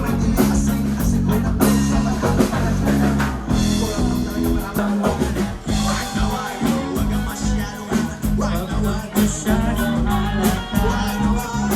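Upbeat background pop music with a steady drum beat, bass and guitar.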